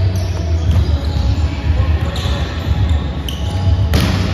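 Volleyball rally on a gym court, over the steady low hum of the hall and background voices. About four seconds in comes one sharp, loud slap of a hand spiking the ball at the net.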